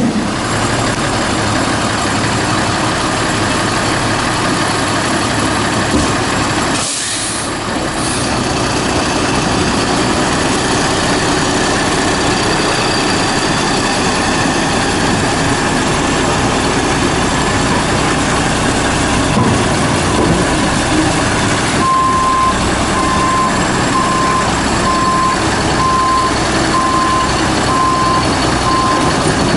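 Peterbilt 310 front-loader garbage truck's diesel engine running steadily, with a short hiss of air brakes about seven seconds in. Over the last several seconds a backup alarm beeps about once a second.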